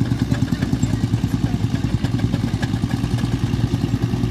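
Vintage tractor engine running steadily, with a rapid, even beat.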